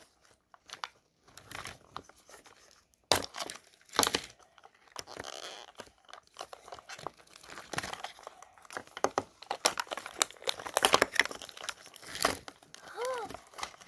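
Paper wrapping torn and crinkled by hand in irregular bursts as the peel-off layers of a Mini Brands toy capsule are unwrapped.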